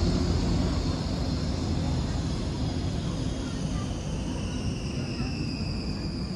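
Passing Zurich city tram: a high electric whine that slowly falls in pitch over a low rumble of wheels on rail.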